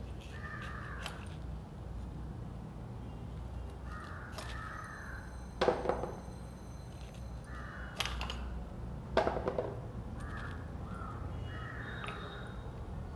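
Crows cawing again and again, with two sharp cracks from raw green mangoes being cut on a boti blade, one about six seconds in and one about nine seconds in.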